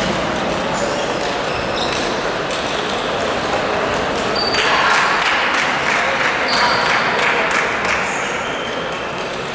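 Table tennis balls clicking off rackets and tables, several small ticks scattered irregularly, over a steady background of hall noise and distant voices. There are a couple of short high squeaks in the middle.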